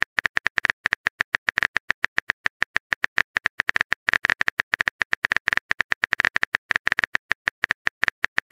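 A rapid, even run of short high electronic blips, about ten a second, the kind of typing sound effect that plays as on-screen text appears.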